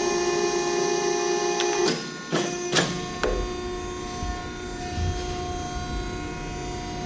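Wysong 60-ton hydraulic press brake running in inch mode: a steady whine as the ram makes its upstroke, which stops about two seconds in. A few sharp clicks follow, then a quieter steady hum as the hydraulic system idles.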